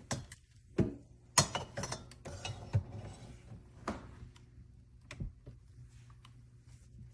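Light clicks and knocks, a handful of separate taps spread over the first few seconds and thinning out after that, like small hard objects being handled.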